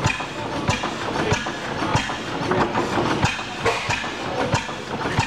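Several antique International Harvester (IHC) stationary gas engines running together, a steady mechanical clatter with one engine's firing beat standing out about one and a half times a second.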